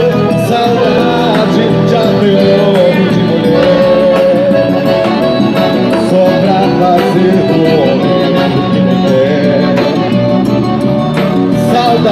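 Festa junina quadrilha music playing loudly and without a break: a Brazilian folk song with a sustained melody over a full accompaniment.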